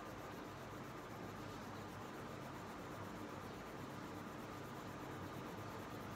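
Purple crayon rubbing back and forth on paper, faint and steady, as an area of a drawing is coloured in.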